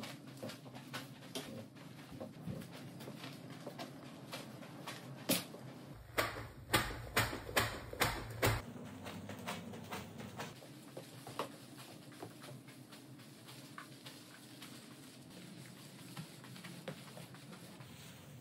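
Wet microfiber spin mop pushed back and forth over soapy hardwood floorboards: a steady stream of short wet clicks, with a run of louder strokes about six to eight seconds in.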